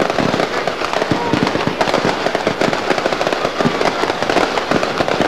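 Fireworks going off from a fogueteiro balloon: a dense, unbroken crackle of many small bangs, several each second.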